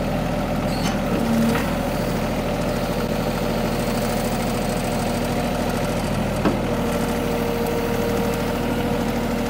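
Mini excavator's Yanmar diesel engine running steadily while the hydraulic arm swings and carries an uprooted tree.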